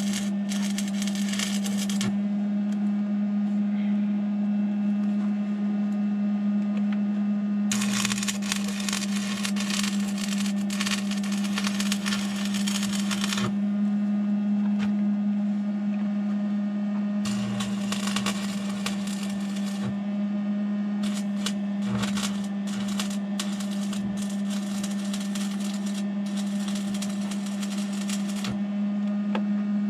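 Arc welding on a steel PTO shaft: the crackle and sizzle of the welding arc, laid down as four separate beads of a few seconds each with short pauses between them, over a steady low hum.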